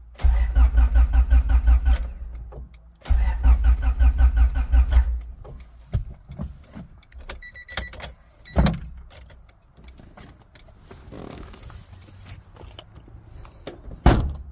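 Honda four-cylinder engine cranking on the starter in two bursts of about two seconds each, an even rapid chug that never catches: it cranks but will not start, with a new distributor already fitted. Later come a short electronic beep, a few clicks, and one sharp knock near the end.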